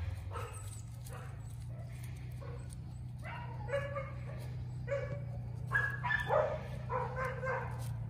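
German shorthaired pointer puppy whining and yipping in short repeated cries, starting about three seconds in, over a steady low hum.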